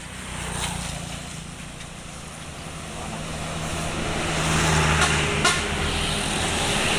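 A large road vehicle, most likely a bus, approaching along the road. Its low engine hum and tyre noise grow steadily louder over the second half. A short sharp click comes early and another about five and a half seconds in.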